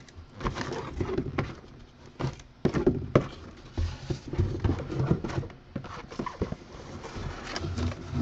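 Small cardboard card boxes being slid across and set down on a wooden desk: scattered knocks and scrapes at an uneven pace.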